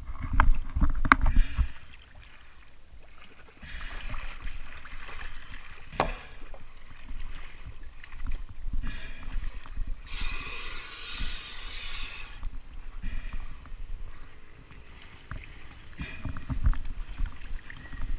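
Water sloshing and splashing around scuba divers floating at the surface, with sharp knocks and splashes in the first second and a half. About ten seconds in, a hiss lasts some two seconds.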